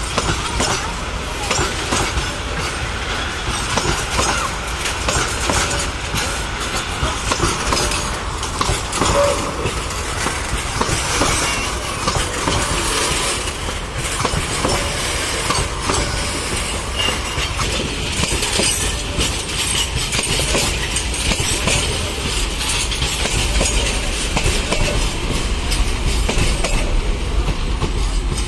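Metre-gauge freight train of covered goods wagons passing slowly at close range: a steady rumble of wheels on rail with a dense run of clattering clicks as the wheels cross the rail joints.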